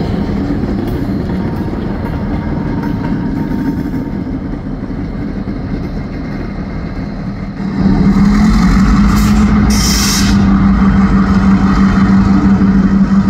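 Diesel locomotive running with a steady engine drone and track rumble, getting louder about two-thirds of the way through, with a brief hiss near the end.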